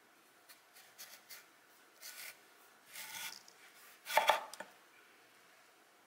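Kitchen knife cutting through a raw watermelon radish on a wooden cutting board: a few short, quieter scrapes and knocks, then the loudest crisp crunch of the blade going through the radish about four seconds in.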